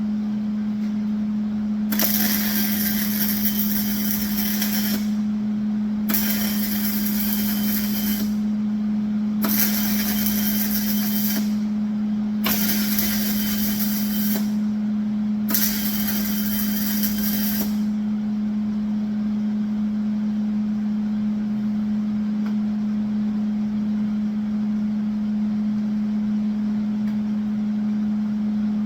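Welding arc on the steel angle-iron frame of a flatbed, five short welds of two to three seconds each with brief pauses between, crackling and hissing. A steady low hum runs underneath.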